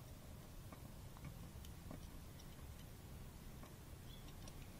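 Faint, irregularly spaced light ticks and clicks of a hand tool working a screw on the fuel pump's metal mounting plate, as the screw is turned down to slight resistance.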